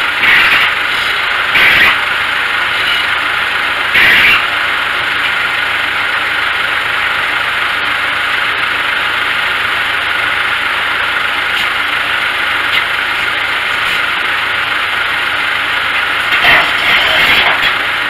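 An engine running steadily at the circle sawmill. Over it come a few short, louder sounds of a cant hook working a big pine log on the carriage: two in the first couple of seconds, one about four seconds in, and one near the end.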